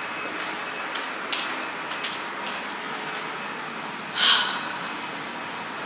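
Steady hiss of hotel ventilation, with a few faint clicks and one short, loud, breathy burst about four seconds in.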